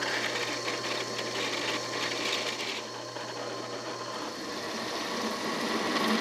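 Drill press running with a steady low hum as a twist drill bit cuts a hole through quarter-inch steel angle iron, drilling the hole for a tap.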